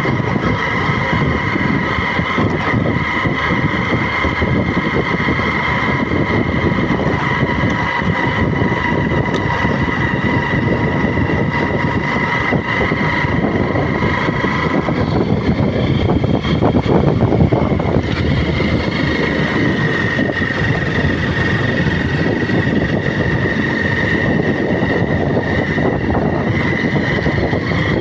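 A motor vehicle driving steadily: engine whine over rumbling road and wind noise. The whine fades about halfway through and returns a little lower in pitch.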